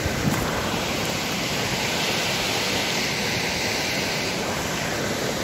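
Steady rush of a river running over rocks and riffles.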